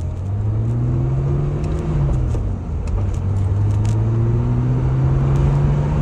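BMW E28 535is straight-six accelerating through the gears: the engine pitch climbs, falls at a gear change about two and a half seconds in, then climbs again. It pulls smoothly without fluttering, which the owner puts down to a new spark plug wire loom replacing a defective one.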